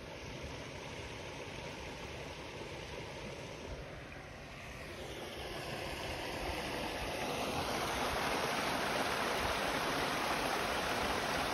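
Small rocky waterfall splashing and rushing into a pond, growing steadily louder from about five seconds in as it comes close, then holding steady.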